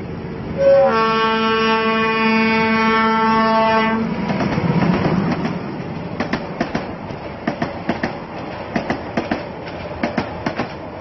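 A train horn sounds a long steady note with a brief break near the start. About four seconds in it gives way to the rumble of a moving train, with rhythmic clickety-clack of the wheels over the rail joints.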